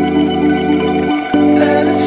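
Instrumental background music: held chords that change about a second in.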